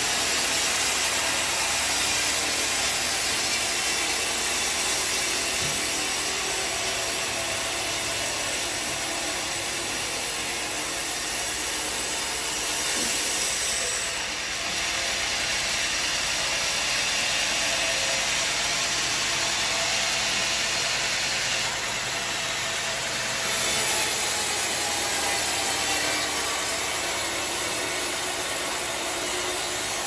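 Sawmill band saw ripping lengthwise through a large old teak log: a steady hiss of the blade cutting the wood, running evenly with only a small dip in level about halfway through.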